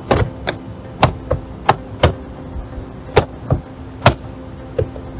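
Plastic car door trim panel being struck by hand to snap its retaining clips into the door: an irregular run of about a dozen sharp knocks.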